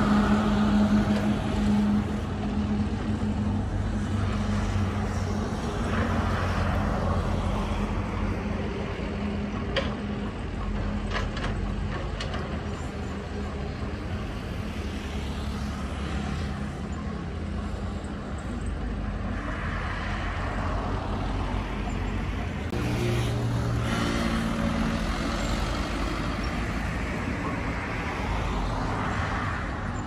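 Diesel engines of a small crawler dozer and a CAT 313C hydraulic excavator running under load as the dozer pushes soil and the excavator digs, with a few sharp metallic clanks about a third of the way in. The engine note shifts about three-quarters of the way through as the load changes.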